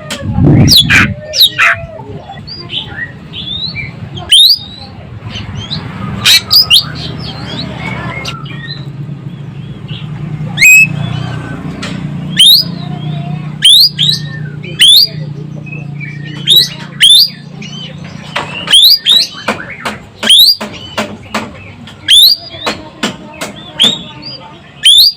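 Ekek keling bird calling busily: many short, loud, sharp calls, each sweeping quickly in pitch, given in irregular runs and clusters. A low steady hum sits underneath through the middle of the stretch.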